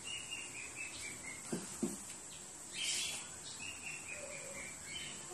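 A bird singing: a short harsh note followed by a falling run of short whistled notes, repeated about every three and a half seconds. Two soft knocks come about a second and a half in.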